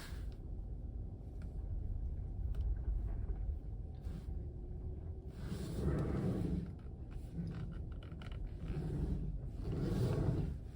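Electric power steering of a 2016 Tesla Model S 75D making a loud low noise during slow manoeuvring, swelling several times, about halfway through and again near the end. This is the fault the owner is demonstrating.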